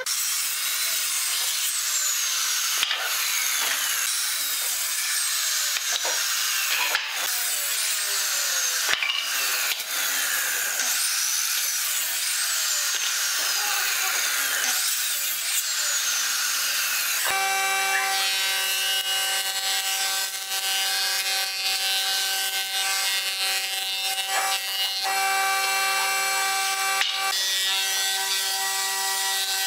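Ryobi sliding miter saw cutting wooden boards, its blade making falling whines as it winds down between cuts. A little over halfway through, the sound switches abruptly to a jointer running with a steady hum as a board is fed across it.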